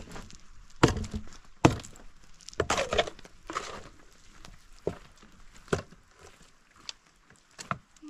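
Irregular knocks and thuds, about one every second or so, with a short cluster of rattling knocks around three seconds in.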